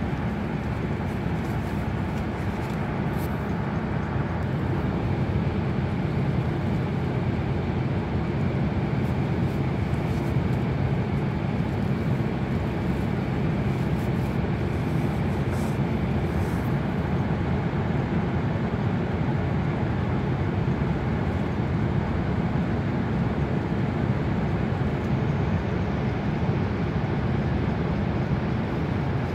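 Steady road and engine noise of a car driving through a road tunnel, heard from inside the cabin: an even, low rumble.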